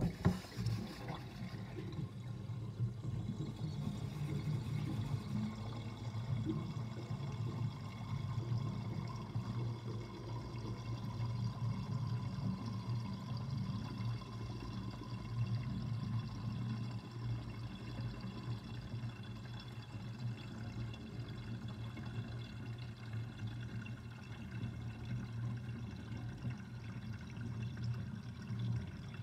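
Water draining down a kitchen sink drain with its overflow opening covered, gurgling steadily and without a break; it starts suddenly at the beginning.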